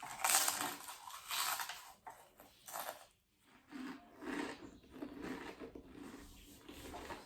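Several Pringles potato crisps bitten and chewed at once: a few loud, crisp crunches in the first three seconds, then quieter chewing.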